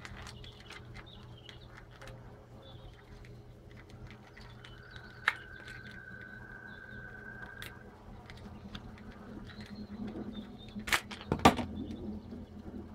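Small clicks and light scrapes of a plastic action figure being handled, with a sharp click about five seconds in and two louder knocks close together near the end. A steady low hum runs underneath, and a thin steady tone sounds for about three seconds in the middle.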